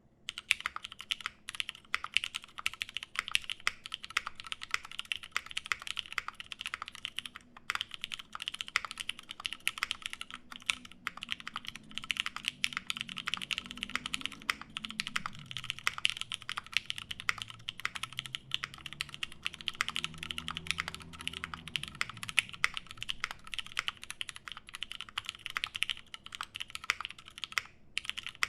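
Continuous typing on a Satisfaction 75 mechanical keyboard with lubed Nixie switches, an FR4 plate and GMK keycaps: a dense, irregular run of keystroke clicks, broken by two short pauses.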